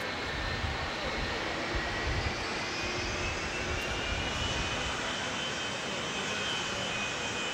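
Jet airliner's engines running at taxi power: a steady rushing noise with a high whine that slowly rises in pitch, over an uneven low rumble.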